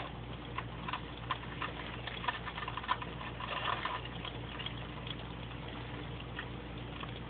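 Rock crab's leg tips and claws clicking and scraping on a plastic tub as it shifts about. A scatter of light taps falls over the first four seconds, then only an occasional tick is heard over a steady low hum.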